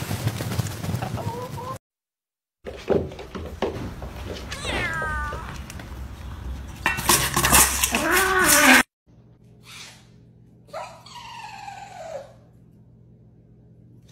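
A string of animal sounds: chickens squawking in a scuffle at the start, then a cat meowing and yowling with a loud stretch of noisy clatter, and after a cut a small dog's drawn-out falling whines.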